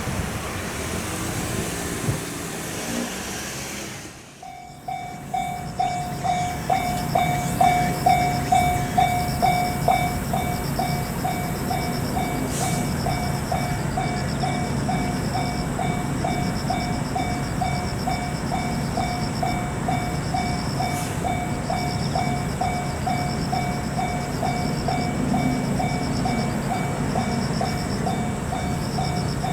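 A train running past, then a Japanese railroad crossing's warning bell starting its steady 'kan-kan' ring, about three strikes a second, over a train's rumble.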